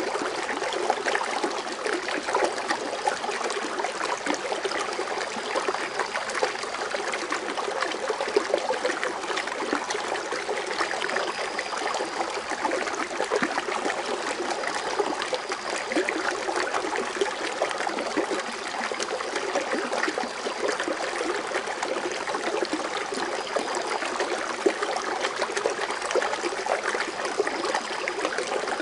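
Foaming water fountain running steadily, a dense, even patter of small splashes and trickling water.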